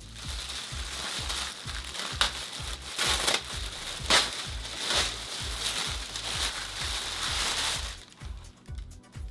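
Clear plastic bag crinkling and rustling as it is pulled down off a tall speaker, with a few sharper crackles, stopping about eight seconds in.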